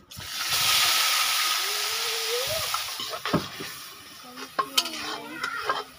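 A ground paste hitting hot oil in a kadai: a loud sizzle starts at once and dies down over about four seconds as it is stirred with a steel spoon.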